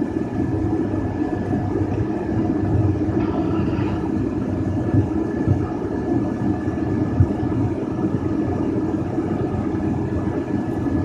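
Single-engine propeller airplane's piston engine and propeller running steadily, with a thin steady high tone over the engine noise.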